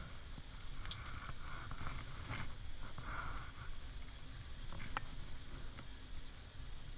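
Soft rubbing and wet squishing at a standard poodle puppy's ear as it is wiped out with a cotton pad after ear cleaner has been massaged in. There are a few short clicks over a steady low rumble.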